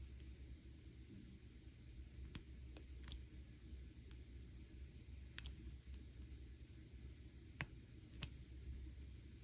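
Xuron flush cutters snipping and working silver-plated copper wire: a handful of faint, sharp clicks, spaced irregularly, over a low steady hum.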